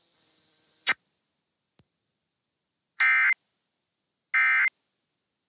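A sharp click about a second in, then two identical short bursts of EAS digital data tone, the SAME end-of-message code that closes an Emergency Alert System test, each about a third of a second long and just over a second apart.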